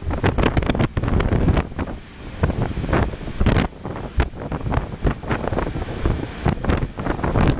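Strong gusty wind buffeting the microphone in irregular blasts, over the rush of heavy storm surf washing across the beach.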